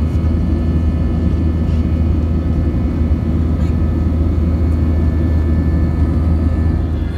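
Airliner's jet engines and rushing air heard from inside the cabin during the climb after takeoff: a loud, steady rumble with a deep hum and faint, steady whining tones above it.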